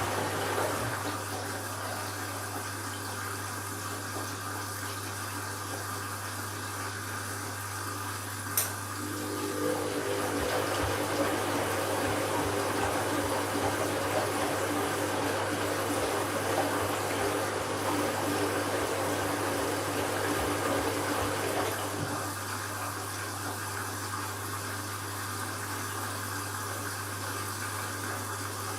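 Candy washing machine running an empty bleaching cycle, with water rushing through it over a steady low hum. About a third of the way in there is a click, and then a louder water rush with a steady whine runs for some thirteen seconds before dropping back.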